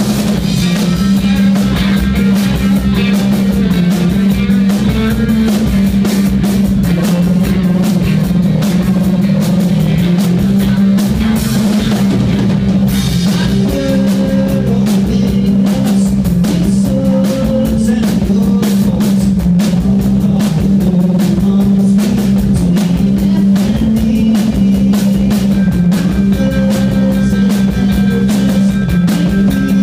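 Live rock band playing loud: electric guitar over a drum kit with steady, dense drumming.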